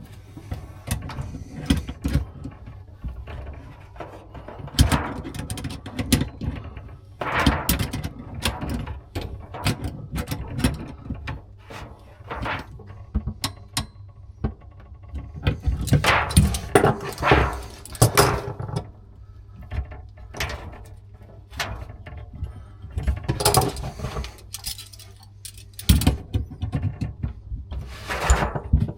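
Hand tools clicking and clinking against a metal compression valve and its fittings while it is wrenched apart, in scattered knocks with busier stretches of clatter about a quarter of the way in and again just past halfway.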